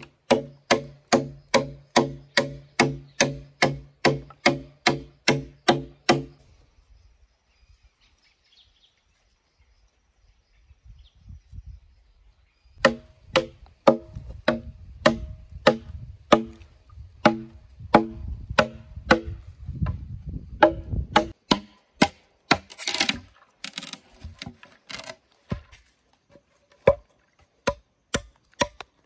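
Bamboo being chopped with a blade: quick, even strokes at about three a second, each with a pitched, hollow-sounding knock. The strokes stop for about six seconds, then start again and grow irregular near the end.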